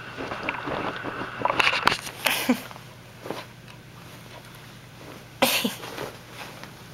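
A puppy huffing and sniffing close to the microphone as it tussles with a blanket. There are short noisy bursts around two seconds in and a louder one a little past five seconds.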